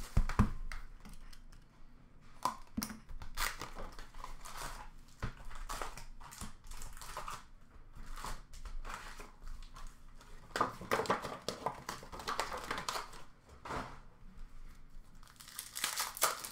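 Hockey trading-card pack wrappers being torn open and crinkled by hand, an irregular run of short crackles and rustles, busiest about ten seconds in.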